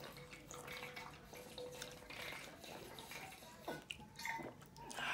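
Quiet gulping and liquid sounds as water is drunk from a water bottle, with a few small clicks.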